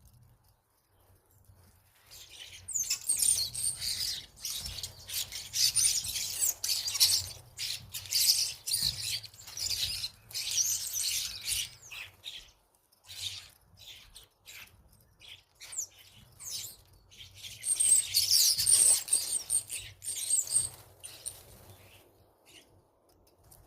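A group of European starlings chattering at a feeder, a dense mix of squeaky whistles, chirps and clicks. It comes in two busy spells, with quieter gaps in between.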